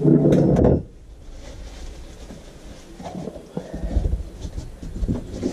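Sand sealer being rubbed onto a piece of wood, with handling noise: a loud burst of rubbing right at the start, then soft irregular knocks and rustling from the wood being moved about.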